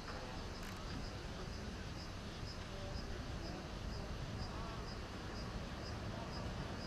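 An insect chirping in short, evenly spaced pulses about twice a second, over a steady low outdoor rumble.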